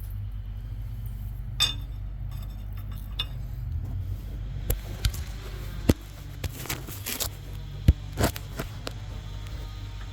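Sharp metallic clinks, knocks and light scrapes of tools and brake parts being handled at a car's rear wheel hub, coming irregularly a dozen or so times. A steady low hum runs underneath.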